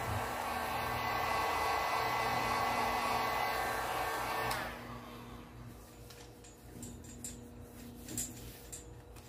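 Handheld electric heat gun running with a steady fan whir as it heats a vinyl seat cover to shrink it onto the cushion, then switched off about four and a half seconds in. A few faint knocks follow.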